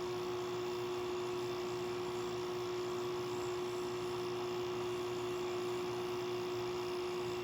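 2016 LG 8,000 BTU portable air conditioner running in cooling mode: a steady, even hum with one strong tone, over a soft rush of air from its fan.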